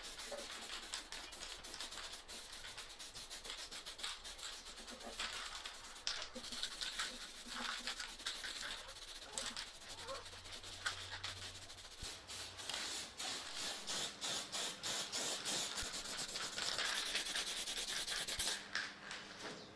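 Hand rubbing with an abrasive, such as sandpaper or a scouring pad, worked back and forth in quick rasping strokes that go on without a break and grow somewhat louder in the last few seconds.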